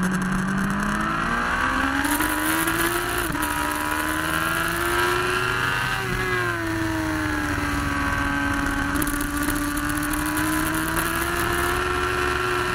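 Motorcycle engine under hard acceleration out of a corner, with wind rushing over the onboard microphone. The engine note climbs, drops sharply at an upshift about three seconds in, and climbs again. It eases off a little around six seconds in, then builds again toward another upshift at the very end.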